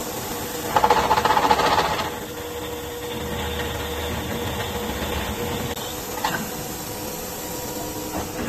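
CNC angle steel drilling machine running with a steady hum. About a second in, a loud rapid chatter lasts for about a second. A low rumble follows, with a short clack a little after six seconds.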